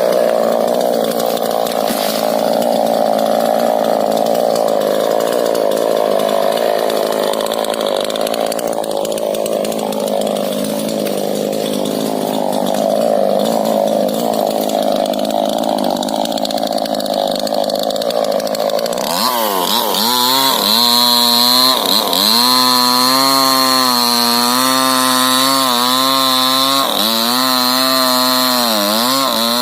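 Two-stroke chainsaw running at high revs while cutting rubber-tree wood: for roughly the first two-thirds it sounds rough and laboured under load, then it changes to a clearer, higher whine whose pitch dips again and again as the chain bites and frees up.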